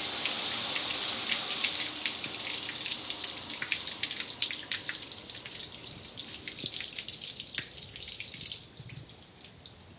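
Water spray hissing onto a gas grill's lid, fading out over the first two or three seconds; then water dripping and trickling off the grill, the drops growing sparser and dying away near the end.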